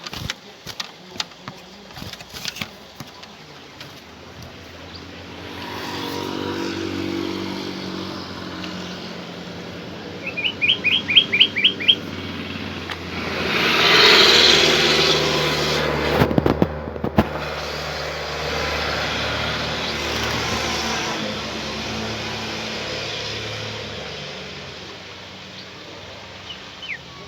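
Motor vehicles passing, their engine hum and tyre noise swelling and fading several times, loudest about fourteen seconds in. There is a brief run of about eight quick, high bird chirps about ten seconds in.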